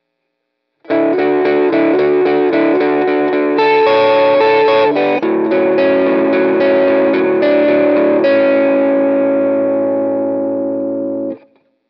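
Electric guitar (a Fender Jazzmaster with Lollar pickups) played through a Boss SD-1W Super OverDrive pedal alone, with no compressor, into a Fender Princeton Reverb amp with a Celestion Greenback speaker. About a second in, the player starts a quick pattern of overdriven chords picked at about five strokes a second. Then a last chord rings out and is cut off near the end.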